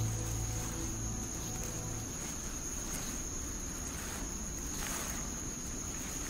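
Insects singing in forest, one steady unbroken high-pitched tone over a light hiss. Soft music underneath stops about two seconds in.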